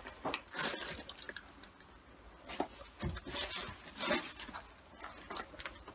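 Scattered soft crunches and rustles at an uneven pace from someone moving through a cluttered room, with a quieter gap near the middle.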